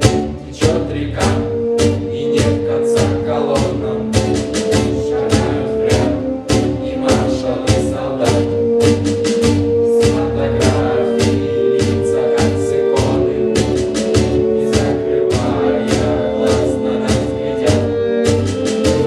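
Background music with a steady beat, held string-like tones and a bass line.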